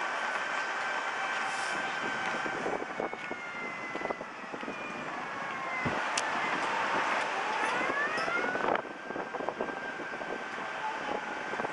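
Electric motor whine of a moving mobility scooter over road noise. About three seconds in the steady whine gives way to tones that glide in pitch, falling first and then rising, before cutting off suddenly near nine seconds, when the steady whine returns. A few knocks and jolts come through along the way.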